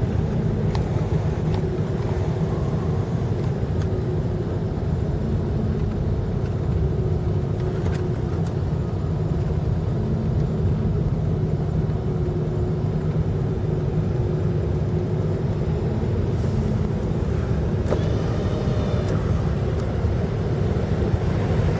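Steady low rumble of a motor vehicle's engine and running gear, with no clear change through the stretch.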